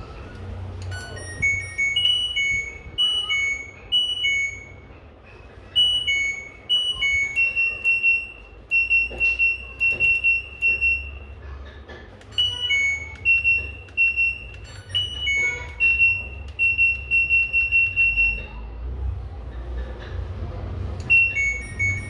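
Electronic beeping from the LG washing machine control board's buzzer: short high beeps on two alternating pitches like a little tune, then runs of quick repeated beeps as its buttons are pressed. This shows the repaired board powered up and responding.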